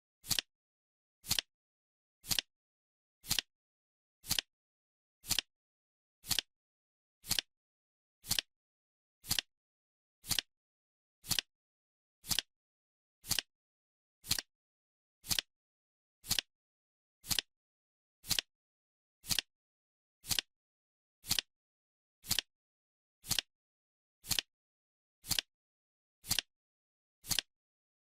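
Ticking sound of a countdown timer: one short, sharp clock-style tick every second, evenly spaced, with silence between the ticks.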